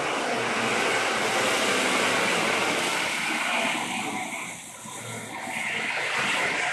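Racing kart running on track, its engine noise mixed with a steady rush of noise; the sound drops briefly about two-thirds of the way through, then picks up again.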